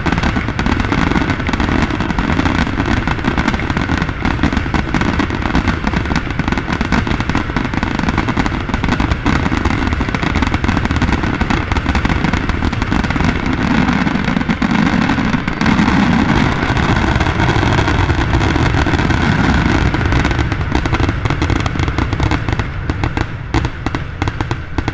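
Fireworks finale: a dense, continuous barrage of aerial shell bursts and crackling stars, thinning out near the end.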